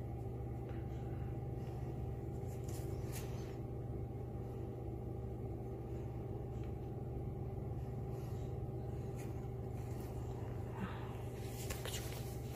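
Steady low mechanical hum with a few faint ticks. Near the end comes a rustle of a hand on the cage's paper pad.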